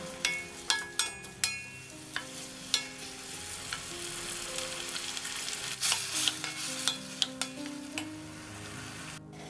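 Wooden spatula stirring chopped tomatoes frying in oil in a stainless steel kadai: repeated sharp knocks and scrapes of wood on steel over a steady sizzle. The knocks come thickest in the first few seconds and again later, and the sizzle is steadiest in the middle.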